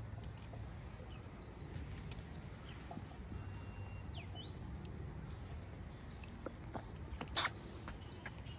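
Quiet outdoor forest ambience with scattered small rustling clicks and a few faint, thin bird chirps. About seven seconds in comes one brief, loud, scratchy noise.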